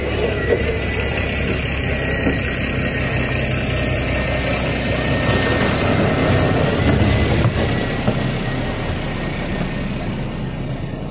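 NefAZ 5299 city bus's Cummins ISBe diesel engine idling steadily at a stop, heard from the pavement beside the bus and then through the open door into the passenger cabin. The low engine noise grows somewhat louder around the moment of boarding, about six to eight seconds in.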